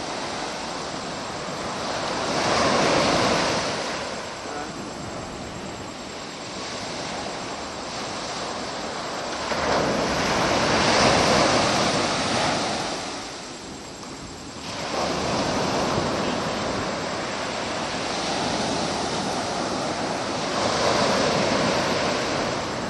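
Ocean surf breaking on a shore: a steady wash of noise that swells up three times, roughly every eight to ten seconds, as waves come in.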